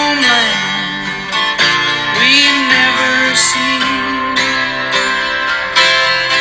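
A song: plucked guitar accompanying a sung melody that glides between notes.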